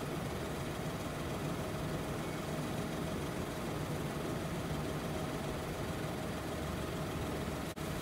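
Steady low rumble like an idling engine, with a faint steady hum above it; it drops out for an instant near the end.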